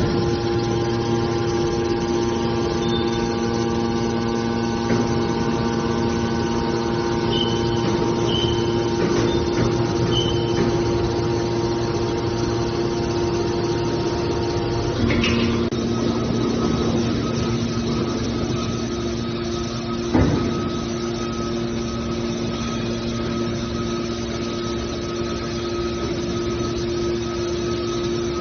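Mini aluminum can baler running: a steady motor hum that shifts in tone about halfway through, with a single knock about two-thirds of the way in.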